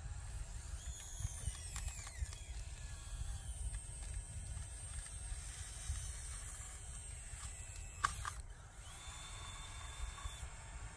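Small electric motors and gearboxes of a converted Bruder RC excavator whining as it works, the pitch sliding up and down and changing as different functions run, over a steady low rumble. A sharp click comes about eight seconds in.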